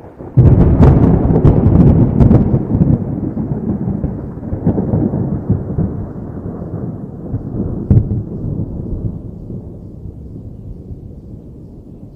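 A thunderclap: a sudden sharp crack about half a second in, crackling on for a couple of seconds, then a long low rolling rumble that slowly dies away, with one more sharp crack about eight seconds in.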